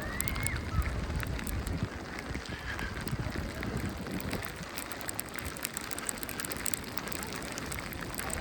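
Snowstorm street ambience: a steady low rumble of wind on the microphone under an even hiss, scattered with many small crackling ticks. Faint distant voices are heard at the very start.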